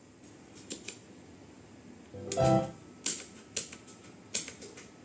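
Quiet room background with several short, sharp clicks spread through it and one brief pitched sound a little over two seconds in.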